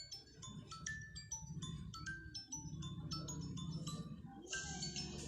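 Music of quick, bell-like chiming notes at changing pitches, over a steady low hum.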